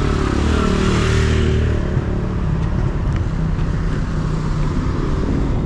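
Road traffic: motor vehicles running past, with one passing close and loudest about a second in, then a steady traffic rumble.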